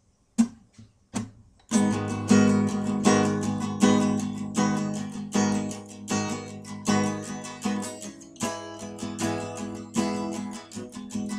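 Acoustic guitar: a couple of separate strums, then steady rhythmic chord strumming from about two seconds in, the instrumental intro to a song.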